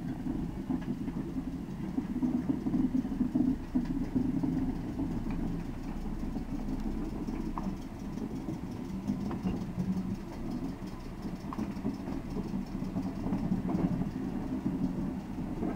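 A slow-moving train of preserved electric multiple unit coaches rolling past during shunting: a steady low drone, with a few sharp clicks from the wheels on the track.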